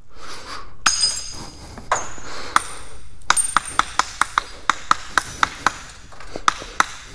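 Hard objects struck with a high ringing ping, twice, then a quick run of sharp taps at about three a second, with a few more near the end.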